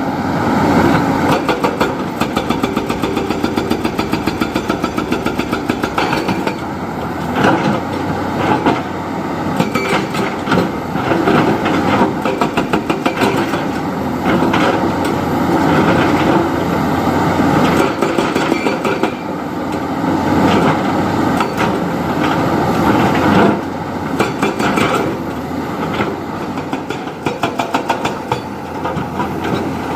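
Diesel engine of a JCB 3DX backhoe loader running under working load while it digs and loads mud, with a rapid knocking rhythm. The level rises and falls as the machine works.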